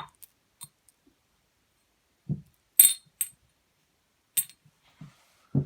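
Loose steel bolts being set down and sorted on a hard surface: a few scattered metallic clinks, two of them ringing brightly, with some duller knocks between.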